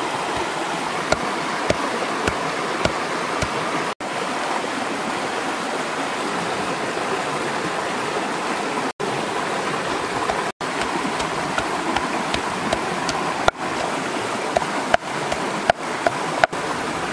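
Shallow stream rushing steadily over rocks, with intermittent dull knocks of a wooden pestle pounding chilies and herbs in a wooden mortar.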